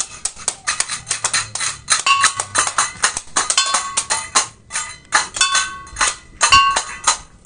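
Small Balinese gamelan-style metal percussion played fast and unevenly: clattering cymbal strikes and a small gong-chime such as a kelenang ringing over and over, with brief pauses about five seconds in and near the end.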